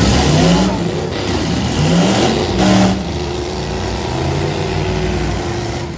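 Demolition derby vans and trucks with their engines revving hard while they shove against each other. The pitch climbs in two surges about two seconds apart over a steady engine din.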